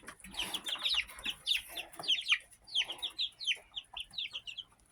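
A flock of young chicks peeping, with many short, high, falling chirps overlapping one another. The peeping thins out near the end.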